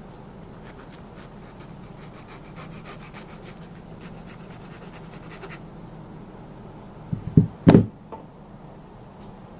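Hand work on a straight razor's scales and pin: a fast run of fine scratching or rubbing strokes, followed by two sharp knocks near the end.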